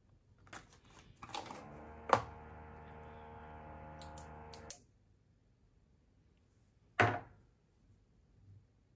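Small clicks and knocks of skincare bottles being handled on a hard surface, with a steady buzzing hum for about three seconds. One louder knock comes near the end, like a bottle being set down.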